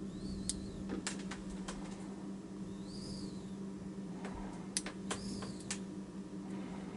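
Light metallic clicks and ticks of a fine hook pick working the tiny pins of a small Master Lock No. 7D padlock, in scattered clusters. A faint high chirp that rises and falls comes back every couple of seconds, over a steady low hum.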